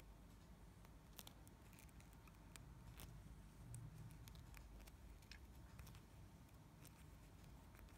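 Near silence with faint, scattered small clicks and rubbing from fingers handling fishing line and a thin metal tube while tying a nail knot.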